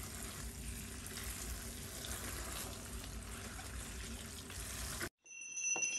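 Water running and splashing into a stainless-steel pot in a sink as vegetables in a plastic tray are rinsed; a steady splashing that cuts off suddenly about five seconds in.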